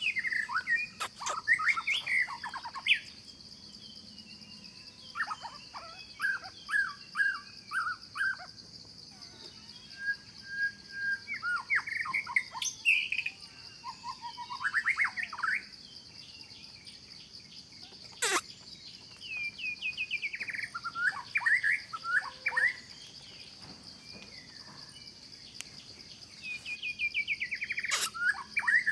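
Birds singing, in repeated phrases of quick chirping notes, some in falling runs, over a steady high insect drone. A few sharp clicks cut through.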